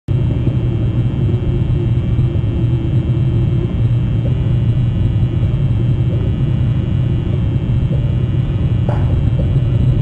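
Steady low rumble with no clear pitch, with a faint click near the end.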